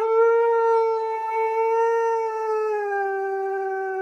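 Siberian husky howling in one long, unbroken note whose pitch sags slightly about three seconds in.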